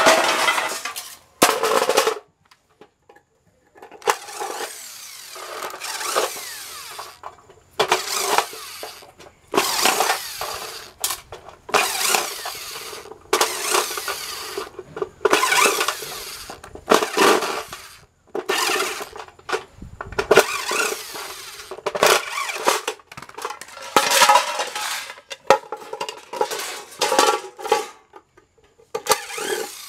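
Electric drill running in short bursts of about a second, a dozen or more times, backing screws out of an aluminium appliance plate.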